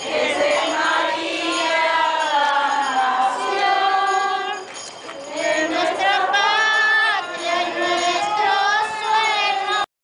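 A group of people, mostly women, singing a religious hymn together. The singing dips briefly about halfway through and cuts off abruptly just before the end.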